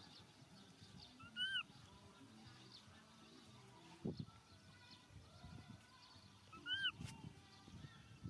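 Two short, high-pitched animal calls, each rising then falling, about five seconds apart, over faint rustling.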